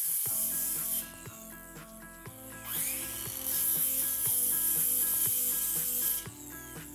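Circular saw, set to a half-inch depth, cutting kerfs into a 2x6 board to form a notch: one cut ends about a second in, then the saw spins up again about two and a half seconds in and cuts until about six seconds. Background music with a steady beat plays underneath.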